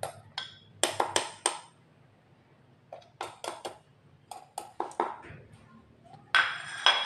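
A metal spoon clinking against a stainless-steel chopper bowl and a plate as seasoning is spooned in, in short groups of sharp taps. Near the end comes a louder, longer clatter.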